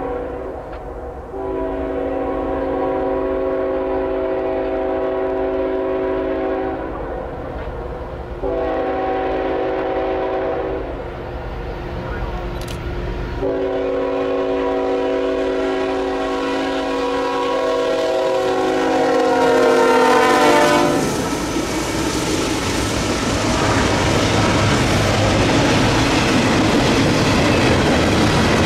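Norfolk Southern freight locomotive sounding its multi-chime air horn in three long blasts, the last one dropping in pitch as it passes. Then the train rolls by with steady wheel and rail noise.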